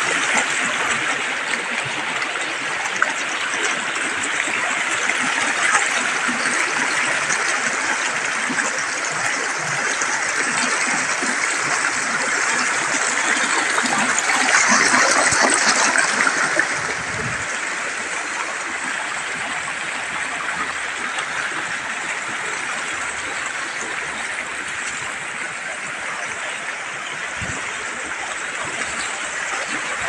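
River rapids: white water rushing and splashing over boulders in a steady, loud rush, swelling louder for a couple of seconds about halfway through before settling back.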